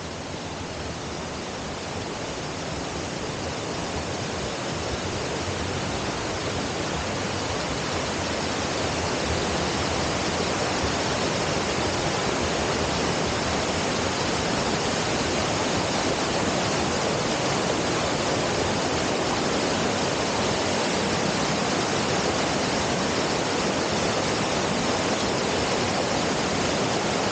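Kapnistavi waterfall: a steady rush of falling water that grows louder over the first ten seconds or so, then holds steady.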